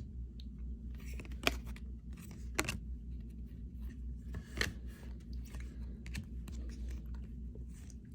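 Baseball trading cards handled and flipped through by hand: a string of short cardboard clicks and slides, about one every half second to second, over a low steady hum.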